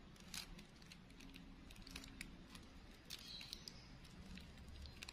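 Faint, scattered clicks and crinkles of thin clear plastic bag being wound by hand around a bundle of plastic flower stamens.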